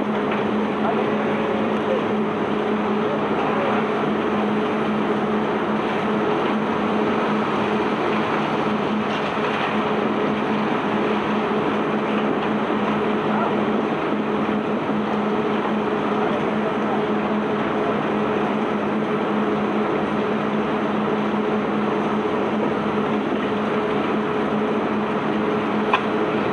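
Self-unloading ship's machinery running steadily: a constant engine drone with a mechanical rumble and rattle over it, unchanging throughout.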